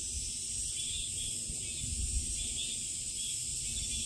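Summer forest ambience: a steady high-pitched insect chorus, with soft chirps now and then and an uneven low rumble underneath.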